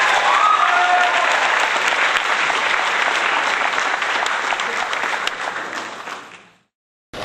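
Audience applause, a dense clatter of many hands clapping, with a voice briefly heard over it in the first second or so. It fades out near the end.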